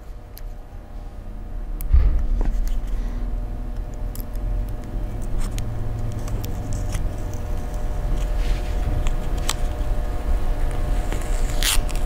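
Crackling and scraping of a thin adhesive heat-shield sticker being peeled off a laptop memory stick by hand. There is a thump about two seconds in, then a low handling rumble with scattered crackles over a faint steady hum.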